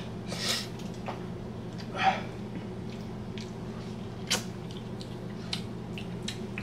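Mouth sounds of someone eating hot wings through the burn: a couple of short breaths blown out, then a few small wet clicks and smacks of biting and chewing, over a steady low hum.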